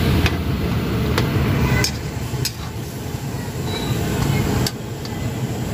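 Metal ladle clinking and scraping against a large metal wok as gobi Manchurian is stirred, about half a dozen sharp knocks over a steady low rumble.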